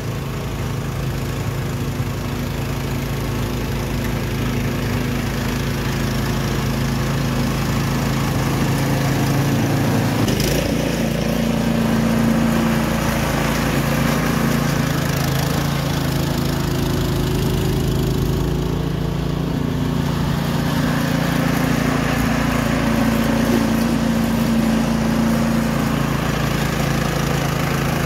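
Craftsman 26-inch two-stage snowblower's single-cylinder engine running steadily under load while its auger and impeller throw snow, with a brief change in the sound about ten seconds in.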